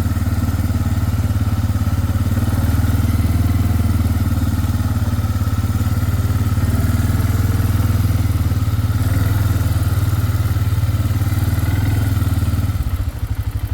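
Four-wheeler (ATV) engine running steadily under way, easing off to idle near the end.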